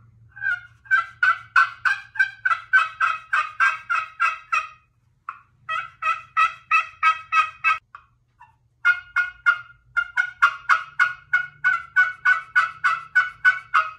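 Handmade pot turkey call with a copper strike surface and walnut soundboard, worked with a wooden striker, giving turkey yelps in three runs of about four notes a second, with short pauses between the runs.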